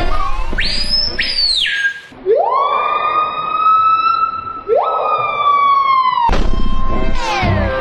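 A siren-like wail: a short high whistle that jumps up and drops away, then a loud tone that rises, holds, and rises again, like a police siren's wail.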